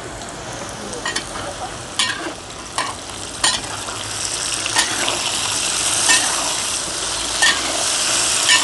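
Diced potatoes sizzling in hot oil in a deep black pan, stirred with a metal spatula that clicks and scrapes against the pan about eight times. The sizzle grows steadily louder.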